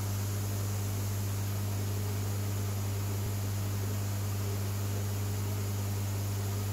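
Steady low electrical hum with a constant hiss, typical of running aquarium equipment such as a pump.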